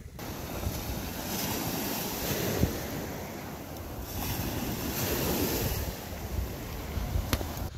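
Small waves breaking and washing up a pebble beach, the surf rising and falling twice, with wind buffeting the microphone.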